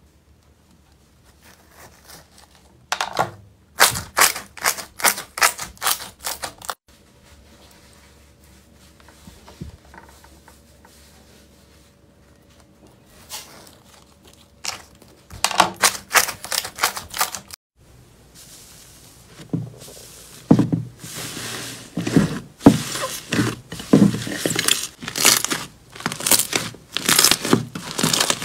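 Glossy slime being pressed, squeezed and pulled by hand, giving runs of sharp sticky pops and crackles in quick clusters, with a quieter stretch in the middle and the densest popping near the end.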